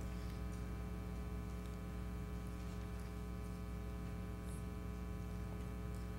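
Quiet room tone carrying a steady electrical mains hum, a low buzz with many even overtones, with a few faint ticks.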